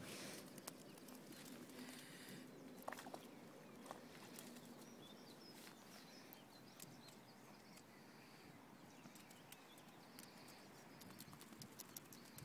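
Near silence: faint outdoor ambience with scattered small clicks and a few faint high chirps.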